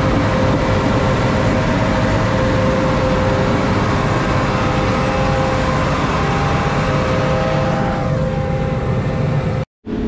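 John Deere CP690 cotton picker's diesel engine running steadily as the machine drives, with a steady whine above the engine note. The sound cuts off suddenly near the end.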